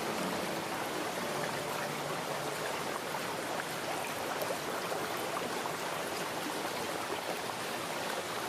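Steady trickling, burbling water with faint small drip-like ticks.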